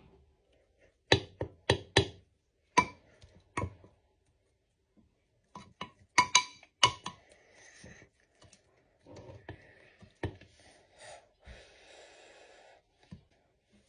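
A utensil clinking and knocking against a bowl as pancake batter is mixed: about a dozen sharp, irregular clinks in the first seven seconds, then quieter, softer noise.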